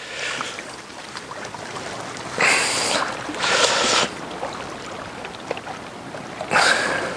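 Gale-force wind and choppy reservoir water lapping at the bank, a steady rushing noise with three brief louder surges: two close together in the middle and one near the end.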